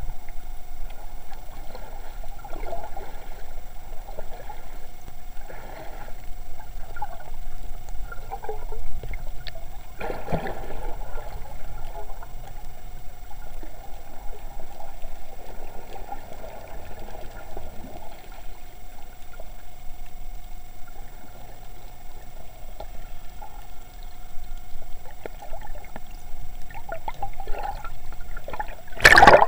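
Muffled underwater sound of swimmers moving through the sea, heard from a submerged action camera: a steady hum with swirling water noise from strokes and fin kicks every few seconds. There is a sudden loud splash near the end.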